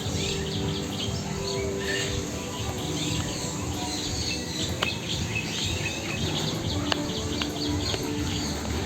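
Many small birds chirping and twittering together in a continuous busy chorus, with background music holding low notes underneath.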